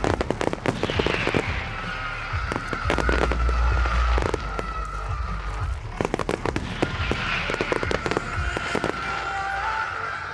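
Fireworks display going off: a rapid run of bangs and crackles, with a steady high whistling tone held over long stretches and a short falling whistle about a second in.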